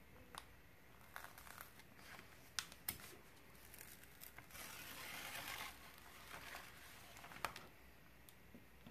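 Faint paper rustling and crinkling as the protective release sheet on a diamond painting canvas is lifted and handled, with scattered light clicks and a longer rustle about five seconds in.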